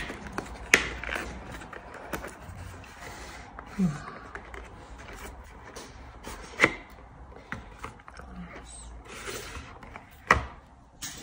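Cardboard gift packaging being handled: a paper sleeve slid off a box and the box opened, with rubbing and rustling of card and a few sharp taps, the loudest near the end.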